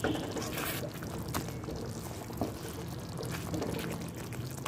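Thick fish curry simmering in a pan, bubbling with soft pops, with a few sharp clicks scattered through it and one more prominent click about two and a half seconds in.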